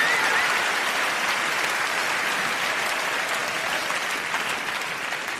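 Large audience applauding, the applause slowly dying down.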